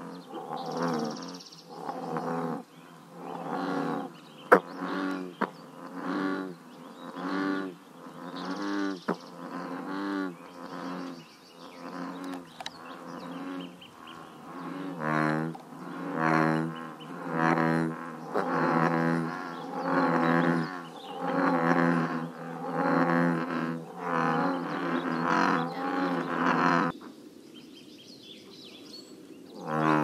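American bullfrogs croaking: a long run of deep, pitched croaks repeating about once a second, stopping for a few seconds near the end. A single sharp click about four and a half seconds in.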